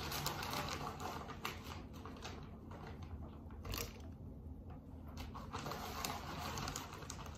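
Quiet, irregular clicking and rustling from things being handled.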